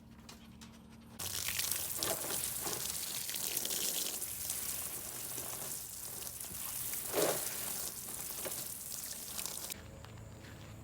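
Running water, a steady rushing noise that starts abruptly about a second in and cuts off sharply near the end, with a few light knocks.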